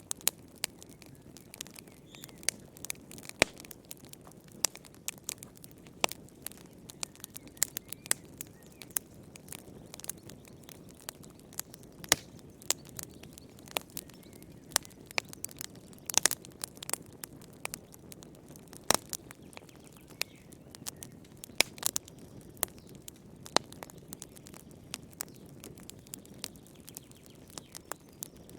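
Wood fire crackling: a steady stream of irregular sharp pops and snaps over a soft low hiss of burning.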